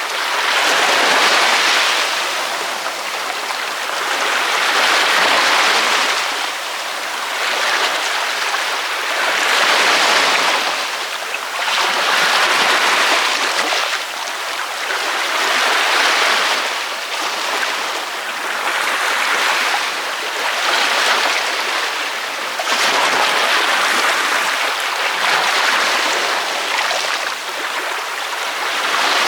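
Ocean waves breaking on a beach: a steady rush of surf that swells and eases about every three to four seconds.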